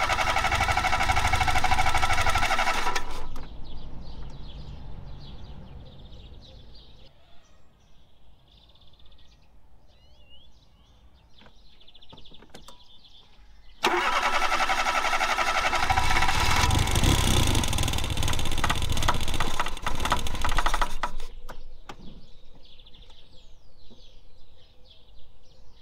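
1991 Fiat Panda 4x4's petrol engine being cranked by the starter motor in two long bouts, one ending about 3 seconds in and another of about seven seconds starting near the middle, each stopping suddenly without the engine catching. The engine is flooded with petrol, which is why it won't fire.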